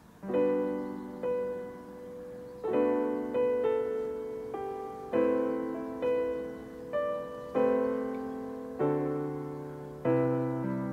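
Background piano music: slow chords and melody notes struck every second or two, each left to fade.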